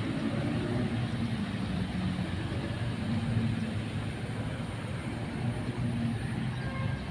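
A small motorboat's engine drones steadily and low as the boat moves away across the water.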